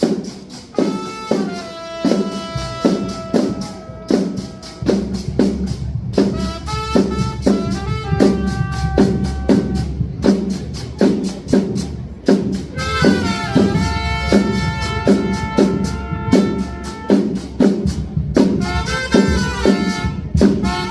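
A trumpet plays a melody of long held notes, some scooping up into pitch, over a band with a steady drum beat of about two strokes a second.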